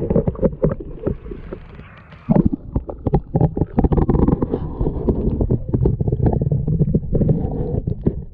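Muffled sloshing and gurgling of pond water around a GoPro dipped into it, with many dull knocks as the camera is moved about in the water; it cuts off suddenly at the end.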